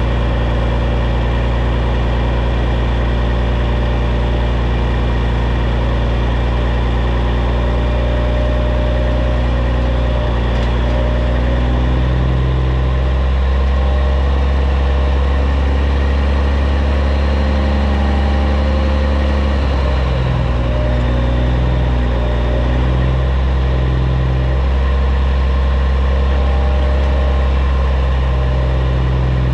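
Caterpillar C15 straight-six diesel of a 2006 Peterbilt 379 running at low engine speed as the truck backs up. Its pitch shifts slightly about twelve seconds in and again a few times past the twenty-second mark.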